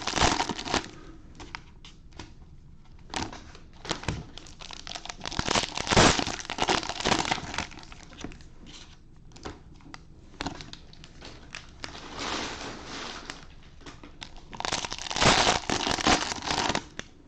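2020 Panini Mosaic cello packs, cellophane-wrapped trading card packs, crinkling as they are taken out of the box and handled, in irregular bursts of rustling.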